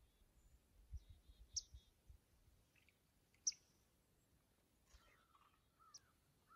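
Faint wild bird calls over near silence: a few short, high chirps and a couple of lower curving calls toward the end, with a handful of soft low thumps in the first two seconds.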